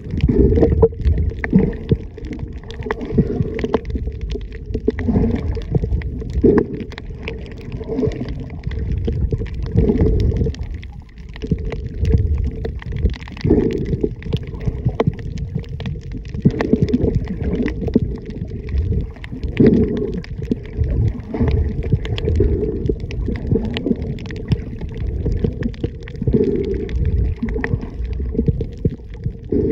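Muffled underwater water noise picked up by a submerged camera: a low rumble and swash that rises and falls every few seconds.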